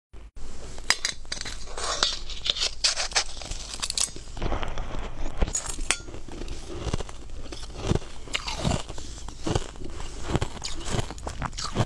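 Crushed ice being bitten and chewed close to the mouth, a run of sharp crackly crunches. In the second half the crunches fall into a steady chewing rhythm of a little more than one a second.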